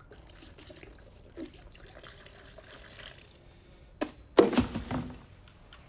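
A faint, crackly rustle, then a handful of loose material poured from the hands into a plastic waste bin, landing in a loud rattling burst about four and a half seconds in.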